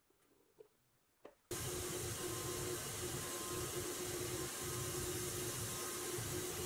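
Powder-coating spray gun blowing powder with compressed air: a steady rushing hiss with a faint hum under it, cutting in suddenly about a second and a half in.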